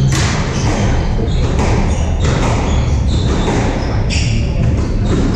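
Squash ball cracking off rackets and the court walls during a rally, several sharp strikes a second or so apart, mixed with players' footfalls and shoe squeaks on the hardwood floor. A steady low rumble runs underneath.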